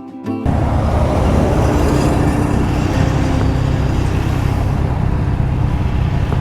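Motorcycle running on the road, a steady loud roar of engine and rushing wind that cuts in abruptly about half a second in.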